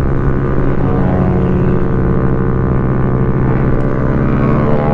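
Suzuki Raider F.i's single-cylinder engine running at a steady cruising speed while the motorcycle is ridden along the road, its pitch holding level with little change.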